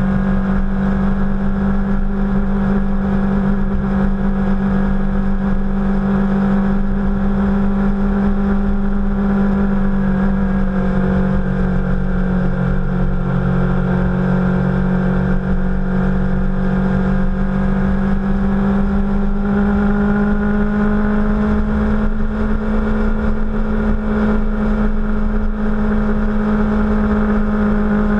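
Sport motorcycle's engine running at a steady cruise, picked up from a camera mounted on the bike, over a low rush of wind and road noise. The engine note sags slightly about a third of the way in and rises a little again about two-thirds through.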